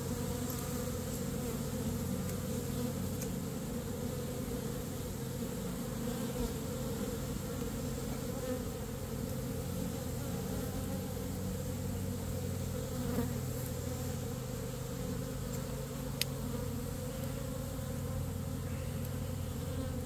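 A large swarm of honey bees buzzing steadily en masse, a low, even drone, as the swarm sits packed in an open hive box.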